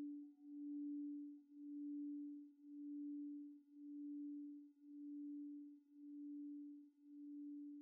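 8-inch Crystal Tones D-20 Platinum alchemy crystal singing bowl sounding one sustained, pure tone near D, with faint higher overtones. The tone swells and fades in a steady pulse about once a second.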